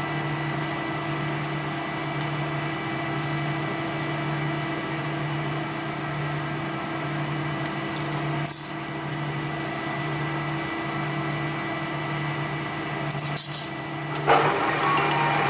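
Workshop machinery running with a steady hum, broken twice by short bursts of high hiss. Near the end a louder machine starts up and keeps running.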